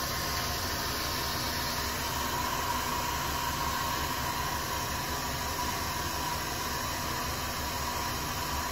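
Handheld hair dryer running steadily: a constant rush of blown air with a thin, steady whine.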